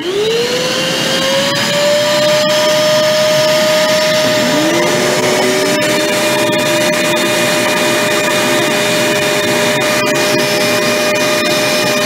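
Two small wet/dry shop vacuums running, an Armor All AA255 2.5-gallon and an older Shop-Vac. One is switched on and spins up to a steady whine. The second starts about four seconds in at a lower pitch, and both then run together.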